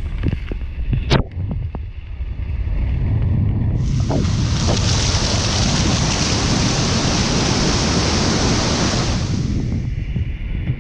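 Waterfall water rushing, with a heavy rumble buffeting the microphone and a sharp knock about a second in. About four seconds in a loud hiss of falling water starts and lasts about five seconds before dropping away.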